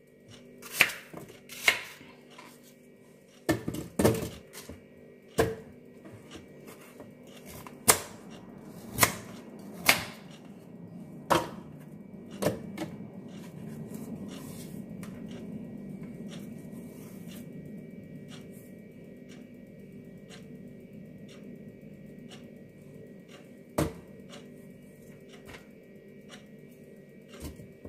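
Sharp, irregular kitchen knocks and clicks from fruit preparation: a knife on a cutting board and pieces of fruit dropped into a plastic blender jar, about a dozen in the first half, then softer handling and rustling with one more knock near the end.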